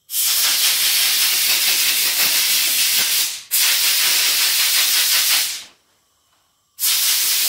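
Compressed-air blow gun hissing in long blasts as it blows dust out of a lawn mower's pleated paper air filter: a blast of about three seconds, a second of about two, then after a pause of about a second a third blast starting near the end.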